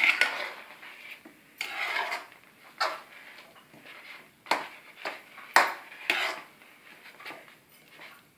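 A metal spatula scraping and stirring thick semolina halwa against the side and bottom of a metal kadhai, in a series of irregular strokes. The halwa is being cooked down until the ghee separates, the sign that it is nearly done.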